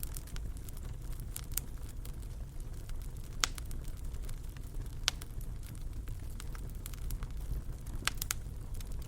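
Fireplace fire crackling: scattered sharp pops over a low steady rumble, the loudest pops about three and a half and five seconds in and a quick pair near the end.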